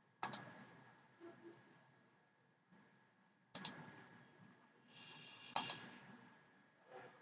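Computer mouse clicking: three sharp single clicks a few seconds apart, with a weaker one near the end. A faint brief high tone sounds just before the third click.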